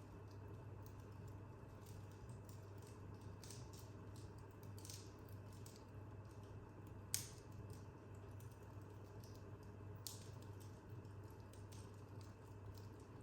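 Wood fire burning in a corner fireplace, with faint scattered crackles and one sharp pop about seven seconds in, over a low steady hum.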